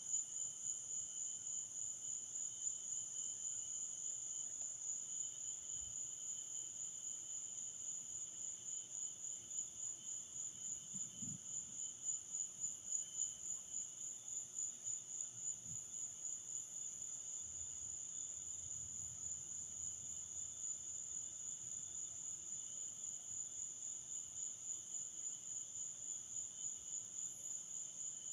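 Night chorus of crickets trilling steadily at a high pitch, with a fainter, lower insect call beneath.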